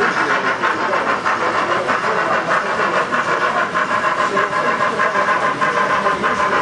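7mm-scale model trains running on metal track: a steady rattle of wheels over the rails with many small clicks, under a motor hum.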